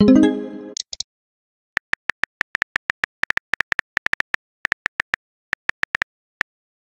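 A short message-notification chime as a text arrives, fading within about a second, followed by a run of quick, irregular phone-keyboard tap clicks, several a second, as a reply is typed.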